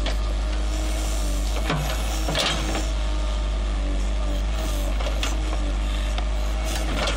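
JCB Sitemaster backhoe loader's diesel engine running steadily under load as the backhoe works, with a steady hydraulic tone that comes and goes. The bucket scrapes and crunches through soil and roots about two seconds in.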